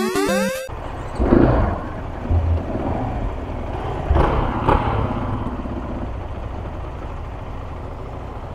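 KTM 500 EXC-F's single-cylinder four-stroke engine running near idle, with two short throttle blips about a second in and about four seconds in. It is having trouble idling, which the rider puts down to an air filter choked with dust.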